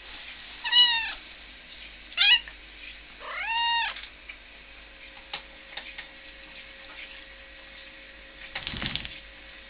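Turkish Van cat meowing three times: a short meow, a brief chirp-like call, then a longer meow that rises and holds. After that come a few light clicks and a short rustle near the end.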